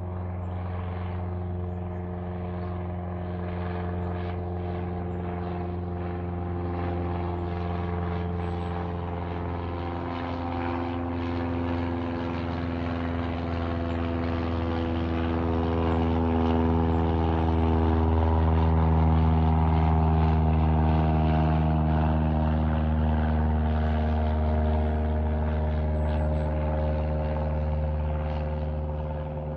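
Piston engine and propeller of a single-engine high-wing Cessna flying overhead: a steady drone that grows louder to a peak about two-thirds of the way through, then eases off, its pitch sinking slowly as the plane passes.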